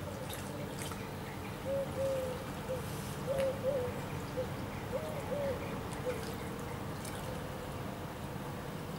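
Shallow river water running steadily, with a run of short, low hooting coos from a bird in the middle, some rising and falling slightly.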